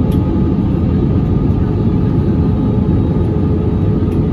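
Steady rumble of a jet airliner's engines and rushing air as heard inside the passenger cabin, with a steady hum running through it.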